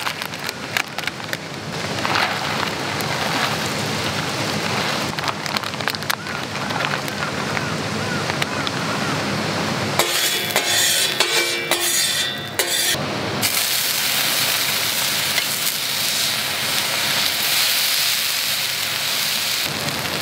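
Clicking and rustling as small shrimp are handled out of a plastic bag over a bowl of cabbage. Then, from about 13 seconds in, a steady sizzle of chopped cabbage frying on a hot round iron griddle.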